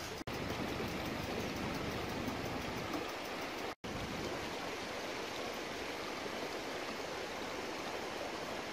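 Steady rush of running water, like a stream over rocks, cutting out for an instant twice.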